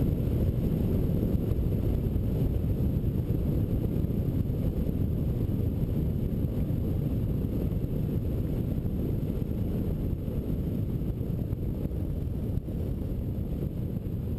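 Airflow buffeting a camera microphone mounted on a hang glider in flight: a steady low rumble of wind noise.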